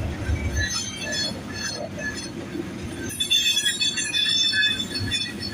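Loaded coal train rolling past: a steady rumble of steel wheels on the rails with thin, high wheel squeal, which grows stronger about three seconds in.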